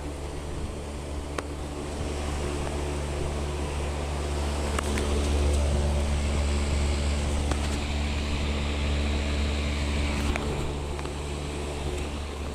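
Outdoor air-conditioning condenser units running: a steady compressor hum with a stack of even tones over fan noise, swelling a little louder midway.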